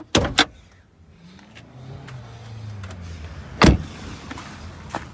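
A pickup truck being handled at its engine bay: two sharp clicks, then a low motor hum that rises slightly in pitch, and one loud thump about three and a half seconds in.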